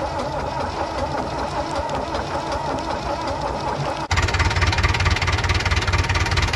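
David Brown 1210 tractor's three-cylinder diesel engine running at idle. About four seconds in it becomes louder and closer, with a rapid, even beat of exhaust pulses.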